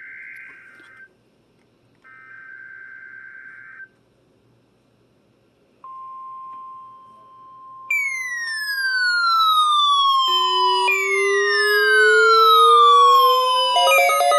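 Emergency Alert System weekly test on weather radio. Buzzy digital header bursts come first, then a steady single-pitch alert tone starts about six seconds in. About two seconds later a siren-like alarm of sweeping, overlapping rising and falling tones joins it and grows louder.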